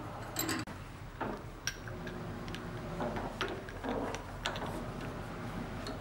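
Scattered light clicks and knocks of metal parts being handled on a steering rack clamped in a bench vise.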